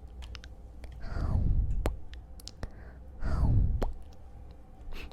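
Close-miked ASMR trigger sounds: two slow rubbing swishes that swell and slide down in pitch, about a second in and again past the three-second mark, with sharp little clicks scattered between them.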